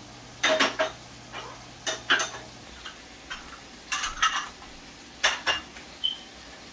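Small dishes and utensils clinking against pots and plates in four quick clusters of two or three knocks, some with a short ring, as seasoning is tipped from a small bowl into a cooking pot.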